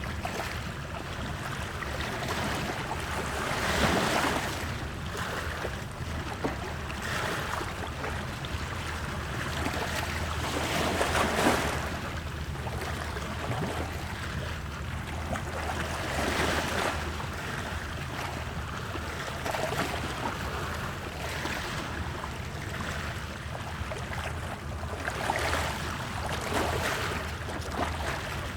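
Wood fire in a fireplace crackling and hissing, with many small pops over a steady rush that swells and fades every few seconds.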